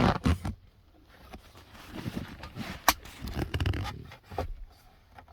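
Plastic handling noise of a replacement power outlet and its wiring harness being worked into a car's center console by hand: rustling and scraping, with one sharp click a little under three seconds in.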